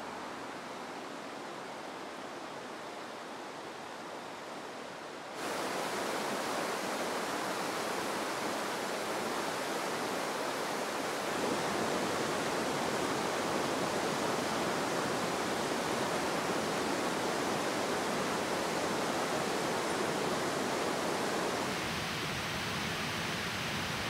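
Steady rush of mountain-stream water, the Oirase River flowing over rocks. It cuts abruptly to a louder, fuller rush about five seconds in and drops slightly again near the end.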